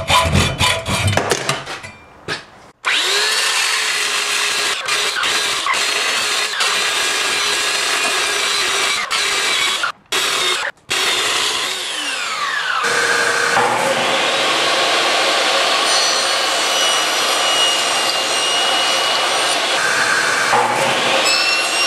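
A hand hacksaw cutting through a copper bus bar held in a vise, in quick strokes, then a Chicago Electric belt sander running against the cut copper end. After a cut, a table saw runs as a piece of wood is fed through the blade.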